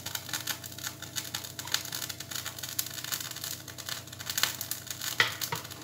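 Milk and ghee crackling in a hot non-stick pan: a dense run of small pops, with a single louder knock about five seconds in.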